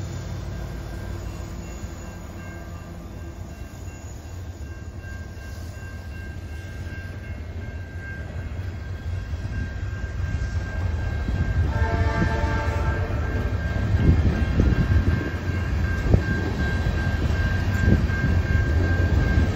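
Freight train rolling slowly past with a steady low rumble, first from the diesel locomotives and then from loaded tank cars. A steady high-pitched squeal sets in partway through, and a short horn-like chord sounds about twelve seconds in. The wheels then clunk over the rails, getting louder toward the end.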